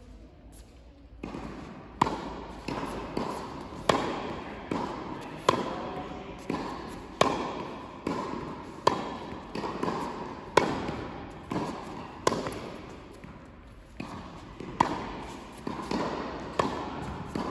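Tennis balls struck with racquets in a volley rally, a sharp pock about every second with the louder hits coming about every 1.7 s, each ringing briefly in the echoing indoor tennis hall. The hits begin a little over a second in.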